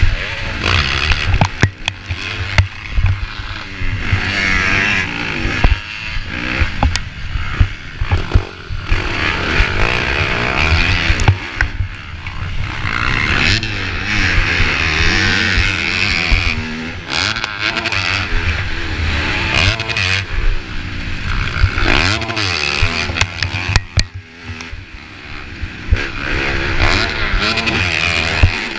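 Motocross dirt bike engine at race pace, heard close from the rider's own bike, revving up and down as the throttle is worked through the corners and straights. There are knocks and clatter from the bike over rough ground. The revs drop off briefly a few seconds before the end.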